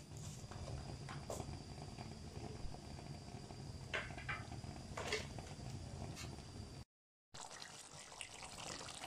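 Chicken karahi gravy simmering in an aluminium pot on a gas stove, with faint occasional bubbling pops over a steady low hum. The sound drops out briefly about seven seconds in.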